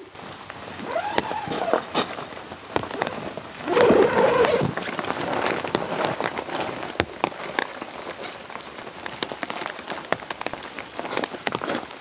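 Heavy rain pattering, with many sharp individual drops striking the tent's fabric and clear plastic windows. There is a brief louder swell about four seconds in.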